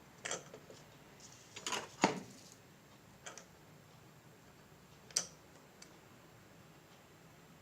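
A few short, sharp clicks and taps of small tools being handled while soldering wires onto a circuit board, the loudest about two seconds in.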